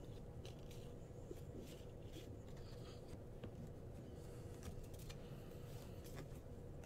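Trading cards being handled and flipped through: an irregular string of soft clicks and brief scrapes of card stock, over a steady low hum.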